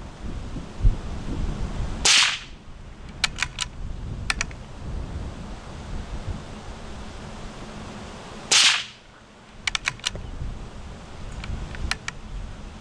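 Two .22 LR rifle shots from an Anschütz rifle firing CCI Stinger hypervelocity rounds, heard from near the target, about six and a half seconds apart. Each shot is followed about a second later by a few quick sharp clicks, over a low rumble of wind on the microphone.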